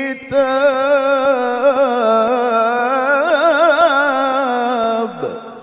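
A male qari reciting the Qur'an in melodic tilawah style into a microphone, holding one long melismatic note on the closing word "kitāb". The held note carries fast wavering ornaments in its middle and ends about five seconds in with a falling drop in pitch.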